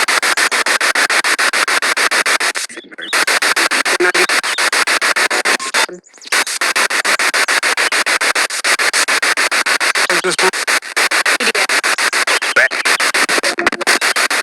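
Spirit box radio sweeping through stations: a hiss of static chopped into rapid pulses several times a second, with brief snatches of broadcast sound. It drops out briefly twice.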